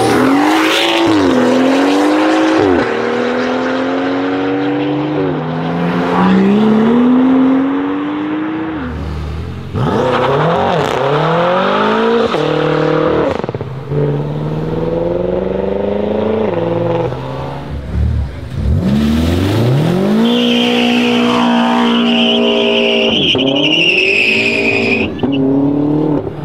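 Several modified BMW cars accelerating hard one after another, each engine note climbing in pitch and dropping back at the gear changes. A high tyre squeal from a burnout runs for a few seconds in the second half.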